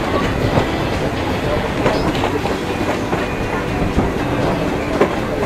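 Passenger train running along the track, heard from aboard the carriage: a steady noise of wheels on rails with a few separate clacks, about two, four and five seconds in, as the wheels pass over rail joints.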